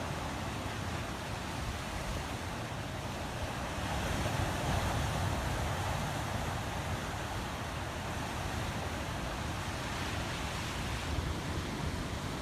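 Steady rushing outdoor nature ambience with no distinct events, swelling a little about four seconds in and easing back.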